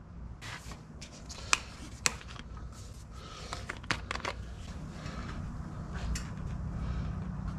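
Handling noise from plastic motor-oil quart bottles and a paper funnel during an oil refill: a few sharp clicks and light rubbing, with a cluster of clicks about halfway through as a bottle's screw cap is twisted off.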